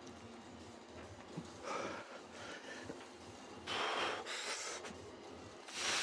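A man's hard, hissing exhales with effort during a lifting set: three breaths about two seconds apart, the last two louder.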